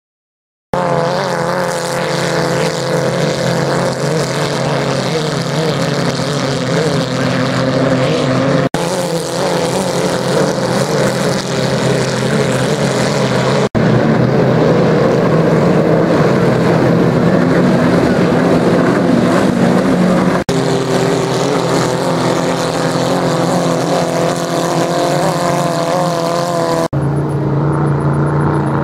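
Vintage racing hydroplanes' open-exhaust engines running loud and steady at speed, starting abruptly just under a second in. The sound breaks for an instant four times where separate passes are spliced together.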